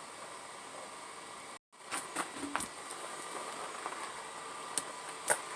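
Scattered light clicks and taps from hands working a small retaining clip onto the kickdown linkage, over a steady background hum. The sound cuts out briefly about a second and a half in.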